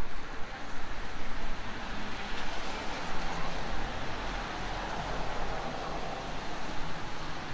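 Plane passing overhead: a broad rushing roar that swells through the middle and eases near the end, over a low steady city rumble.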